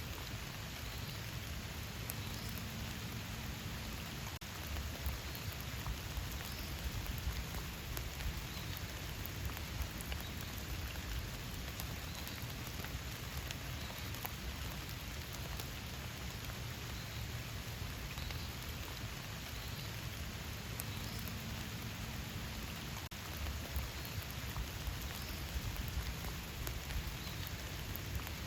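Steady rain falling in a forest: an even hiss with individual drops ticking through it.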